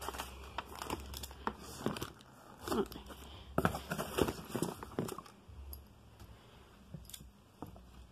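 Plastic packaging crinkling and a cardboard box rustling as items inside are handled. The crackles and rustles come in a quick run for about five seconds, then thin out to a few soft ones.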